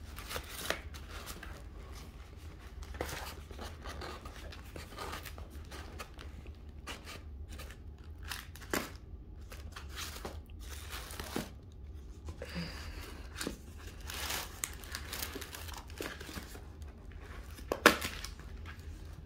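Plastic wrap and paper packaging crinkling and tearing as a shrink-wrapped box is opened by hand, with scattered rustles and one sharp snap near the end.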